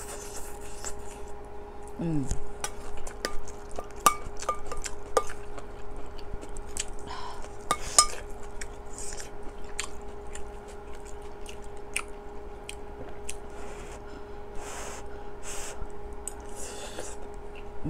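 A metal spoon clinking again and again against a stainless steel pot and bowl while someone eats stew, with chewing between the clinks. A short vocal sound comes about two seconds in, and a steady faint hum runs underneath.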